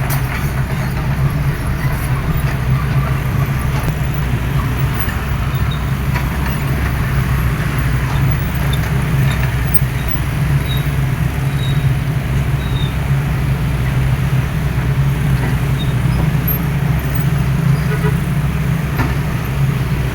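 Diesel engine of a hydraulic excavator running steadily at working speed, with a few faint clicks and clanks.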